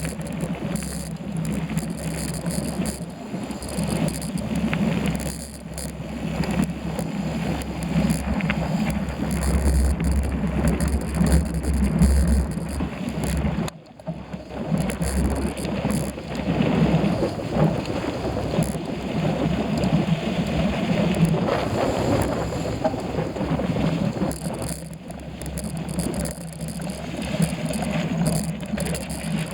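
Wind buffeting the microphone over the rumble of a bicycle being ridden, rising and falling, with a brief lull about halfway through.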